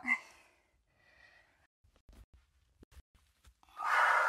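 A woman breathing hard during a squat hop: a soft inhale early on, a few faint thumps of bare feet landing on a yoga mat, then a loud, breathy exhale near the end.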